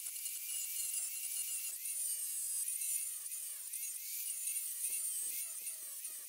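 Electric angle grinder running with an abrasive sanding disc, scouring rust off the steel wires and hub of a fan guard. Its high whine wavers up and down as the disc bears on the wires.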